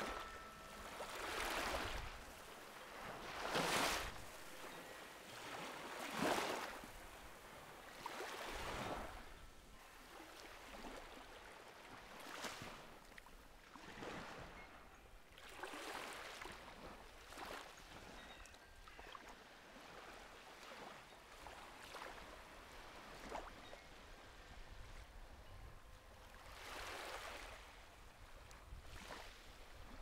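Small sea waves washing onto a sandy beach, each wash a swell of hiss that rises and fades, several stronger ones in the first ten seconds and gentler ones after. A koshi chime's ring fades out within the first second.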